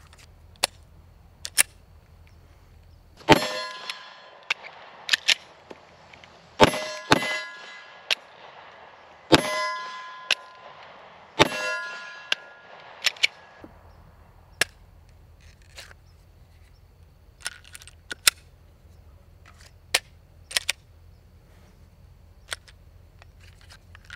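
Glock 43X 9mm pistol firing several shots a few seconds apart, each followed by a metallic ring, with sharp clicks of the slide and magazine being worked before and after the shots. The magazine is clogged with dirt and struggling to feed rounds.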